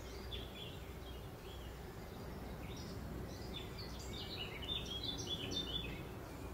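Small birds singing: a few short chirps near the start, then a quick run of song notes from about three to six seconds in, over a steady low outdoor rumble.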